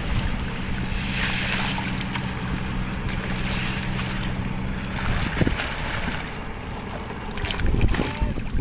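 A fishing boat's engine humming steadily at sea, with wind buffeting the microphone and water rushing past. The engine hum drops away about five seconds in, leaving wind and water noise with a few knocks near the end.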